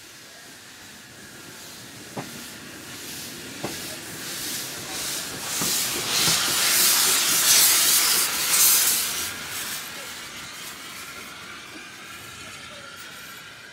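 Bagnall 0-4-0 saddle tank steam locomotive running slowly past, its steam hiss swelling to loudest about halfway through and then fading. Two sharp clicks come early on.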